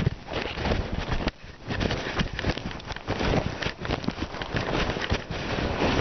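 Handling noise on a covered camera's microphone: a dense, irregular run of rustles and thumps.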